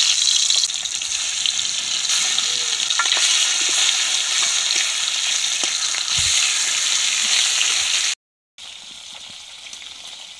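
Turmeric-coated fish pieces frying in hot oil in an iron kadai: a steady, dense sizzle. About eight seconds in it breaks off abruptly, then goes on more faintly.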